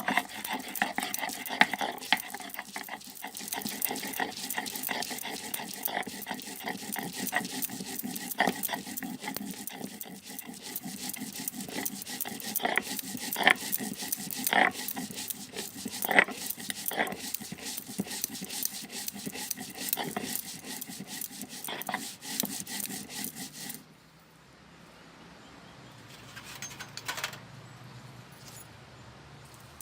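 Stone muller (batta) scraped and rolled back and forth over a stone grinding slab (sil), grinding with a steady rasping rub and sharp clicks of stone on stone. The grinding stops suddenly about 24 seconds in, leaving only faint sounds.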